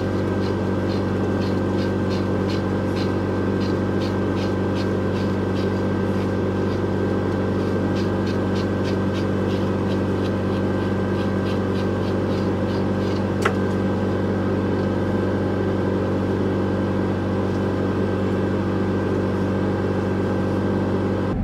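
A steady mechanical hum runs throughout. Over it, a long-pin slicker brush rakes through a dog's thick double coat in quick, regular strokes, about three or four a second. There is a single sharp click a little past halfway.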